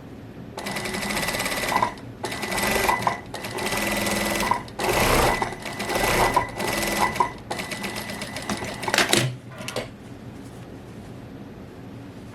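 Sewing machine stitching in several short runs with brief pauses between them, stopping about ten seconds in.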